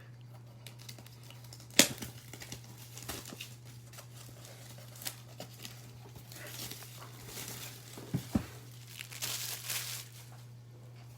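Plastic wrapping on a box of trading cards crinkling and tearing as it is opened, with a sharp snap about two seconds in and denser crackling in the second half, over a steady low hum.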